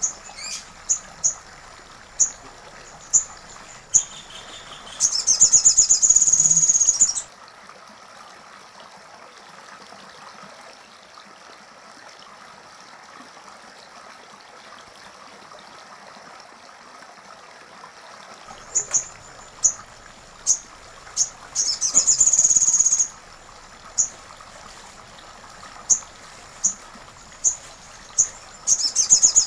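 A bird calling: sharp, high single notes about once a second, broken twice by a rapid rattling trill of about two seconds.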